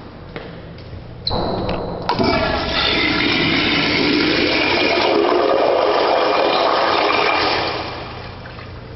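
Commercial tankless toilet flushing through its flushometer valve: a sudden rush of water starts about a second in and runs strongly for about six seconds, then dies down near the end.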